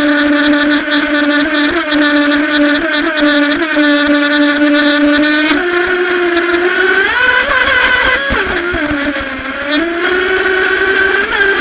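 Feilun FT011 R/C speedboat's electric motor whining at speed, with the hiss of water spray thrown up behind the hull. The pitch steps up about halfway through, sags and wavers for a second or two, then climbs back near the end.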